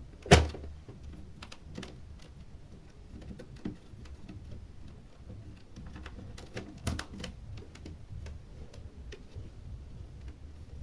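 Scattered plastic clicks and taps from a computer keyboard being handled, with one sharp knock just after the start and a few louder clicks about two-thirds of the way through.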